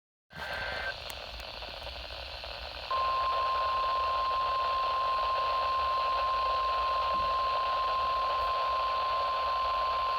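NOAA Weather Radio receiver hissing with static, with a short higher tone just after it comes on; about three seconds in, the steady 1050 Hz warning alarm tone of the weekly test starts and holds as one unbroken tone.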